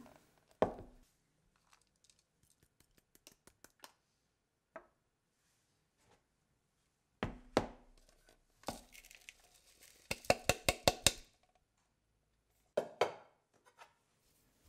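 Food chopper chopping nuts, raisins and candied lemon peel: scattered knocks and clicks, then a quick run of rapid clatters about ten seconds in and one more strike near the end.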